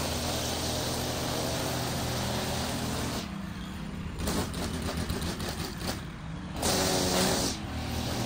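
Handheld string trimmer with a small engine, running at high revs while cutting grass along a patio edge. About three seconds in it drops back to a lower, quieter running for a few seconds, with a few clicks, then revs up again, dipping briefly once more near the end.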